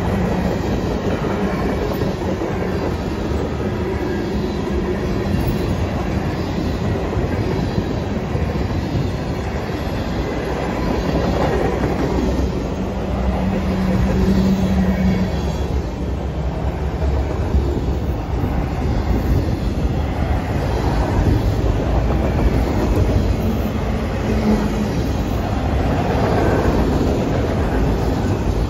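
A freight train's cars, tank cars, boxcars and autoracks, rolling steadily past on a curve. Their steel wheels make a continuous loud rumble on the rails.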